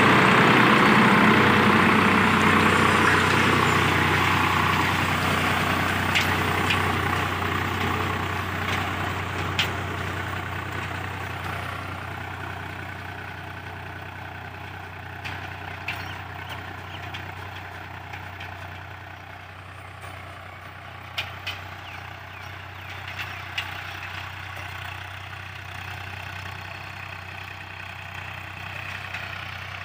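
Farm tractor's diesel engine running steadily, growing fainter over the first twenty seconds or so as the tractor moves away, then holding level. A few sharp faint clicks are heard along the way.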